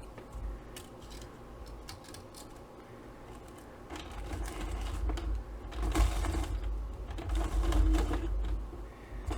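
Hand-cranked Xyron adhesive machine being cranked to run paper tags through, a steady mechanical rattle starting about four seconds in, after a few light clicks.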